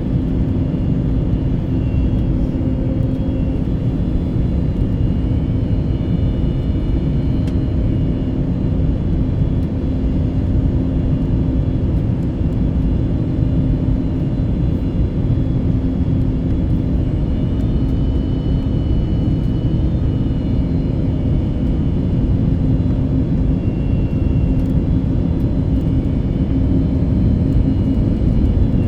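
Steady drone of an airliner in flight, engines and rushing air, with a constant low hum.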